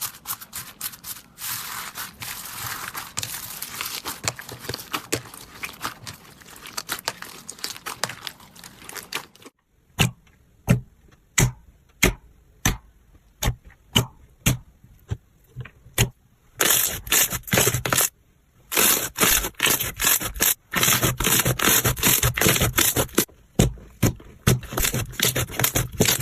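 Slime being handled: dense crackling and scraping, then a run of sharp separate pops about one and a half a second from about ten seconds in, then dense crackling again from about sixteen seconds in.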